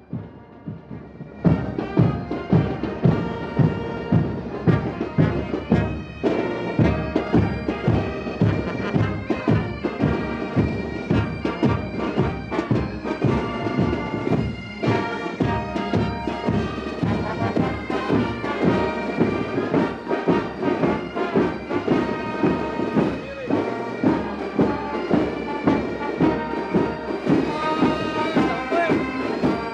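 Military marching band playing a march with bagpipes over a steady drum beat, about two beats a second. The drums come in about a second and a half in.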